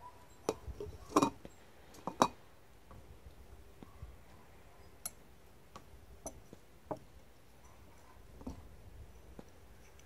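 Metal stirring rod clinking and tapping against the inside of a glass beaker as a wad of wet filter material is stirred. A cluster of sharp clinks comes in the first two seconds, followed by scattered lighter ticks.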